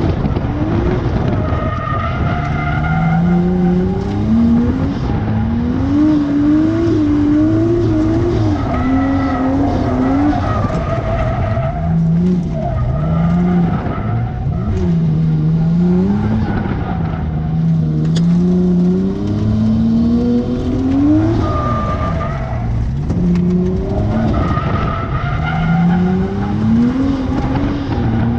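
Nissan Skyline R32 GTS-T's RB20DET turbocharged straight-six running through a straight-through ISR exhaust, heard from inside the cabin under driving. The revs climb and drop again and again as the car accelerates and lifts or shifts.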